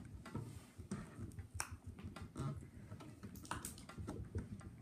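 Hands handling a plastic-cased battery pack and pressing a sticker onto it: irregular light clicks and taps of fingers on the plastic, with soft rubbing.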